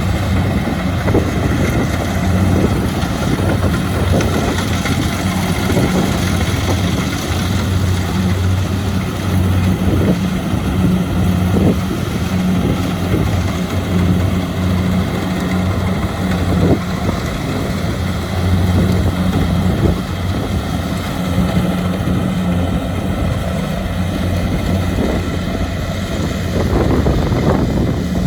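Kubota DC-70 Plus combine harvester running steadily under load while harvesting rice: a constant diesel engine hum with the machine's threshing noise over it and a few light knocks.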